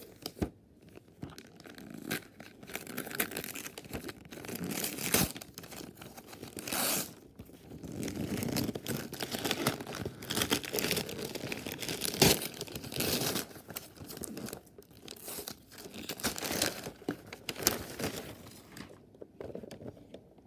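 Gift wrapping paper being torn and crumpled off a cardboard box by hand, in irregular rips and rustles, with one sharp knock about twelve seconds in; the tearing dies down near the end.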